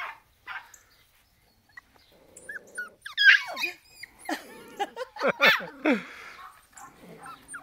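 Schnauzer puppies whining and yelping, with high cries that slide down in pitch, starting about three seconds in after a near-quiet start.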